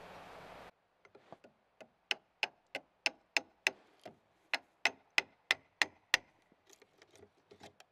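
Hammer striking a chisel to chop out a mortice in the end of an old timber log: two runs of about six sharp blows each, about three a second, with lighter taps before and after.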